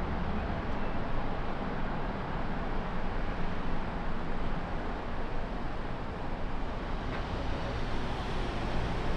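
Boeing 787-9 on final approach, its jet engines a steady distant rumble with no clear whine.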